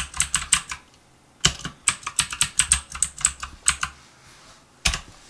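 Typing on a computer keyboard: a short run of keystrokes, a pause of about a second, then a longer run of quick keystrokes, and one louder single key click near the end.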